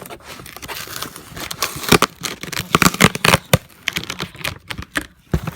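Packaging being torn and crinkled by hand while a parcel is opened: irregular sharp rips and crackles, denser and louder from about two seconds in.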